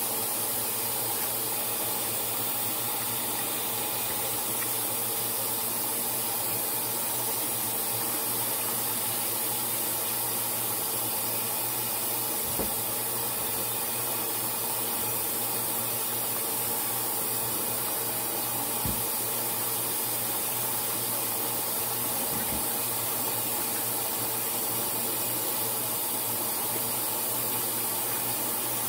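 Saucepan of tomato broth at a rolling boil on the stove: steady bubbling and hiss over a steady low hum, with a few faint clicks.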